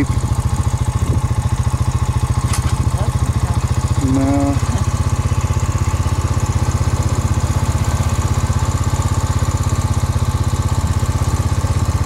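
A motor vehicle's engine idling close by, a steady, even low throb that does not change.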